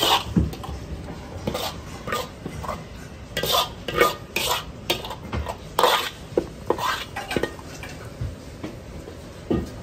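Kitchen clatter: metal spoons and utensils clinking and scraping against porcelain plates and pans in irregular clanks.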